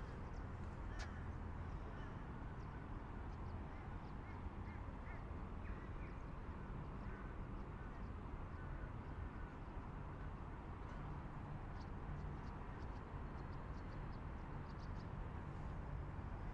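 Steady low outdoor rumble with faint bird calls a few seconds in and light ticking later on.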